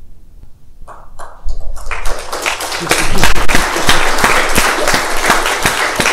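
Audience applause: a few scattered claps about a second in, swelling within a second into dense, steady clapping.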